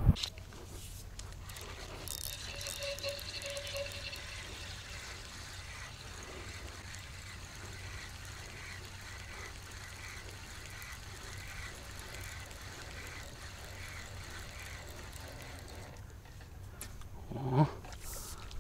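Spinning reel being wound in under load while a hooked crucian carp is played on a float rod, a soft ticking whirr repeating about once a second. A short louder thump comes near the end.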